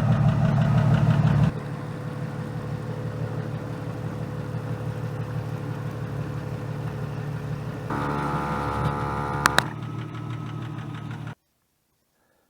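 Machinery running steadily while two tires are inflated: an air compressor with the Jeep's engine idling. The sound drops in level a second and a half in, a second pitched note joins for under two seconds around eight seconds in with two sharp clicks, and everything cuts off abruptly about eleven seconds in.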